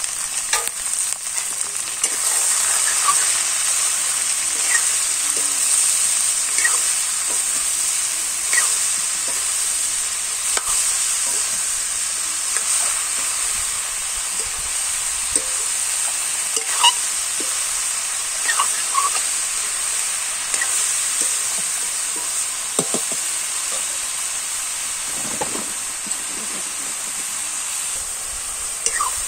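Sliced ash gourd frying in a karahi: a steady sizzle that swells about two seconds in, with a metal spatula scraping and clinking against the pan as the vegetables are stirred.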